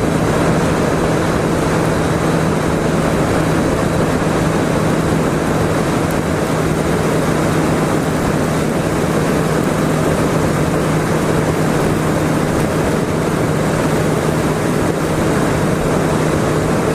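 1999 Yamaha YZF600R's inline-four engine running at a steady cruise, holding one even pitch, under heavy wind rush over the microphone.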